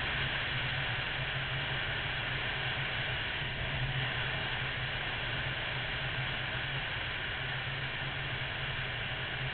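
Wind rushing over the microphone with road noise, over the steady low drone of a Honda VFR800's V4 engine at a constant cruising speed.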